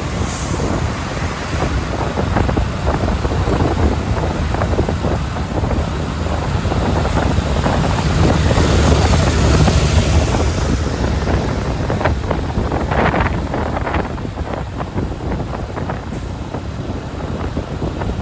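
Motorcycle riding on the road, its engine and road noise under wind rushing over the microphone; the rush swells to its loudest about halfway through.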